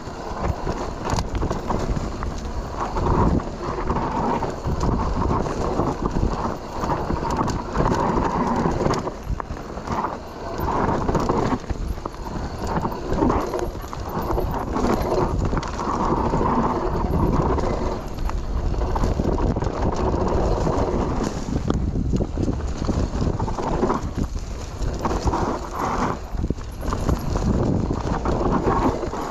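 Mountain bike descending a dusty dirt trail at speed: tyres rumbling over dirt and roots, with constant irregular knocks and rattles from the bike over bumps, and wind buffeting the helmet or bike-mounted action camera.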